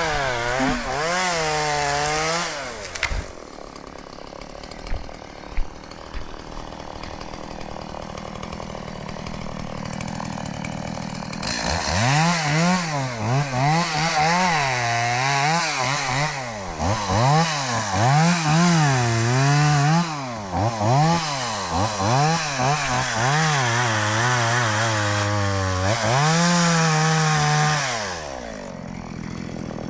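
New two-stroke gas chainsaw revving over and over, its pitch rising and falling about once a second, with a quieter stretch near idle early on and a steady, lower-pitched run in the middle. Near the end it drops back to a quieter idle.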